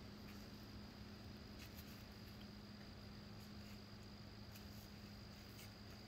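Near silence with a faint, steady, high-pitched cricket trill and a few faint ticks.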